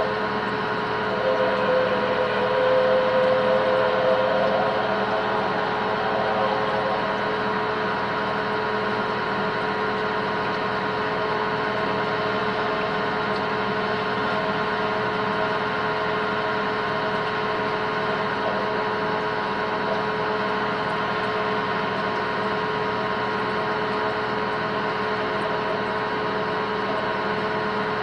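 Metal lathe running while a cobalt drill bit, fed from the tailstock, drills through a steel workpiece. It is a steady machine sound with a wavering ringing tone in the first several seconds that fades away.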